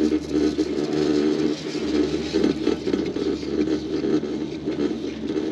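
Chairlift running: a steady whirring hum from the moving haul rope and sheaves, swelling and easing slightly in loudness.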